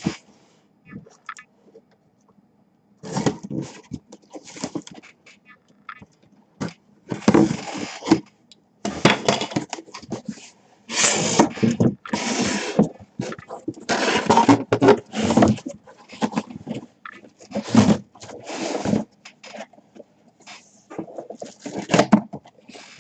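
The box and its packaging being opened and handled by hand: irregular bursts of rustling and scraping with short pauses between them.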